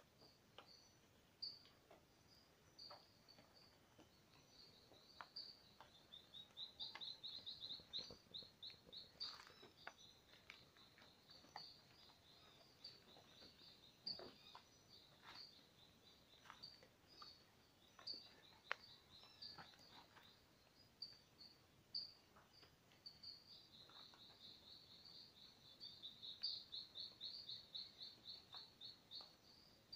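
Faint, high-pitched animal chirps repeating over and over. Twice they break into a run of rapid pulsed chirps at about four or five a second, lasting a few seconds each time. Scattered light clicks fall in between.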